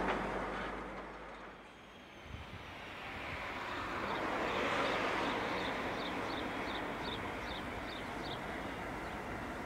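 A passing freight train's rumble fades away in the first two seconds, then a Class 56 diesel locomotive hauling a train of hopper wagons is heard running, building up and then holding steady. From about the middle on, a short high squeak repeats about twice a second.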